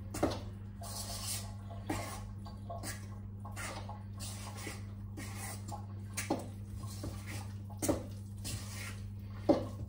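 A big metal spoon folding wet muffin batter in a stainless steel mixing bowl: wet squelching and scraping strokes with irregular knocks of the spoon against the bowl. A steady low hum runs underneath.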